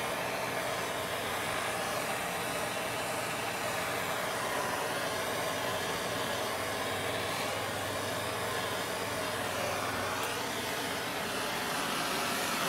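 Handheld gas torch burning with a steady hissing flame as it heats a heat-shrink boot over a coax splice, the hiss wavering slightly in tone.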